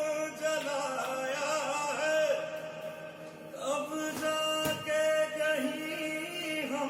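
Music: a song with a male voice singing a melodic line over instrumental accompaniment, dipping briefly about halfway through.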